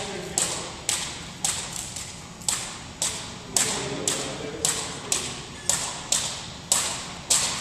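Double-dutch jump ropes being turned, slapping the wooden gym floor in a steady rhythm about twice a second, each slap echoing briefly in the large hall.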